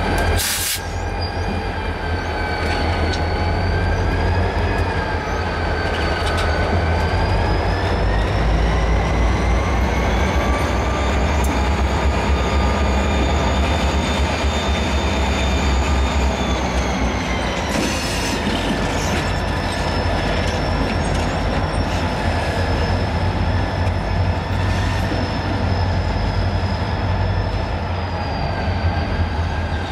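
Reading & Northern diesel locomotives passing at low speed: a deep engine rumble under a steady high whine that rises in pitch over the first several seconds and falls again a little after halfway.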